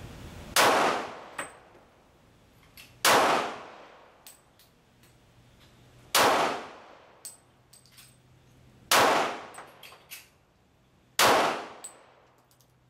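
Five pistol shots from a Gen 4 Glock 23 in .40 S&W, fired slowly about two and a half to three seconds apart. Each shot has a ringing, decaying tail, and fainter clicks follow some of them.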